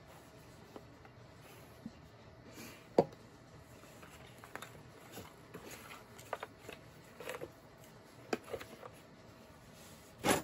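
Plastic shop vac motor housing parts being handled and fitted together: scattered clicks and light knocks, the loudest about three seconds in and another near the end.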